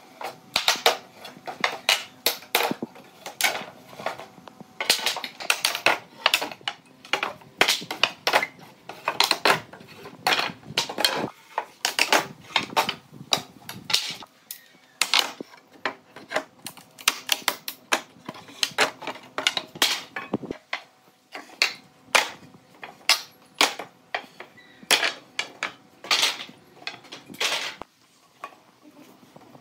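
Irregular sharp knocks and clinks, a few a second, some ringing briefly, with a few short pauses.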